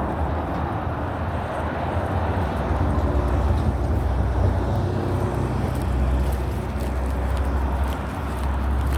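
Steady outdoor background noise with a low rumble, like traffic or wind on the microphone; no clear single event.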